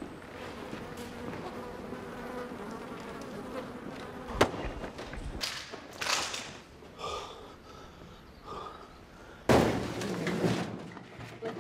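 Flies buzzing, then a sharp knock about four seconds in, a few thuds, and a loud bang near the end.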